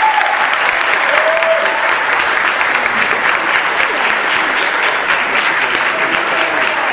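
Audience applauding: dense, steady clapping from a full hall at the end of a song, with a couple of short cheers rising over it.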